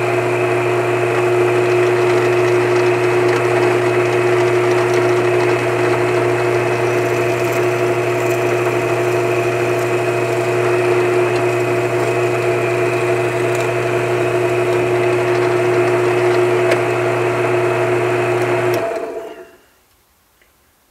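Drill press motor running steadily as a 17/64-inch bit bores a hole in a wooden block. About nineteen seconds in it stops, running down to quiet within about a second.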